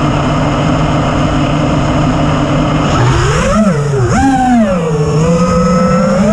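FPV racing quadcopter's brushless motors (T-Motor F60 Pro II, 2500 kv) humming steadily at armed idle, then whining up and down in pitch with throttle as it lifts off, about three seconds in.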